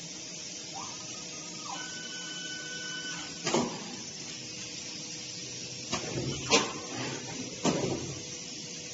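Automated lithium-ion pouch cell assembly machinery running over a steady hum. A motor whine rises, holds and falls, then a steady whine sounds briefly, followed by about four sharp mechanical clacks.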